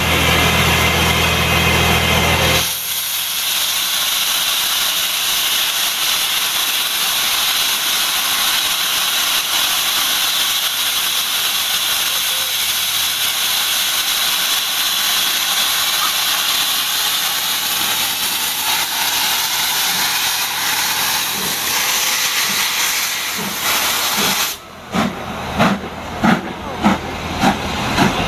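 Steam locomotive No 4, a 2-6-4 tank engine, hissing loudly and steadily with escaping steam as the train moves off, after a low steady hum in the first couple of seconds. About 25 seconds in the hiss stops and the exhaust beats come through, about one and a half a second.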